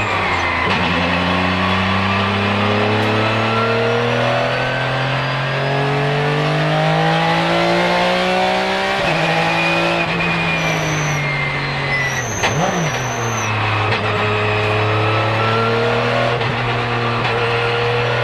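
Porsche 996 GT3 RSR's naturally aspirated flat-six race engine heard from the cockpit at full throttle, its revs climbing for several seconds to an upshift about nine seconds in. The revs then fall off under braking, with quick blips on the downshift and a brief high squeal, before the engine pulls hard up through the revs again.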